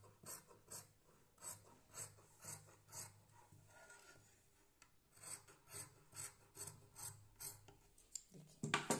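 Large tailor's shears cutting through cotton fabric in a curve, a run of short rasping snips about two to three a second, pausing briefly around the middle, with a louder knock near the end.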